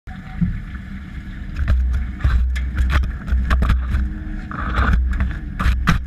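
Washing machine drum turning a load of wet laundry, heard from inside the drum through the GoPro's waterproof housing: a heavy low rumble that swells and fades, water sloshing, and repeated sharp knocks against the steel drum.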